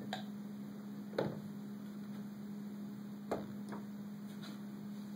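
Steady electrical hum from an energised AC induction coil with an iron core (a jumping-ring apparatus). A few light knocks of a glass jar being handled and set down on top of the coil, the clearest about a second in and two more after three seconds.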